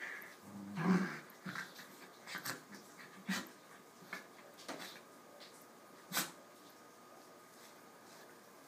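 Two corgis play-wrestling: a brief low growl about a second in, then scattered short snuffs and mouth noises, dying away over the last couple of seconds.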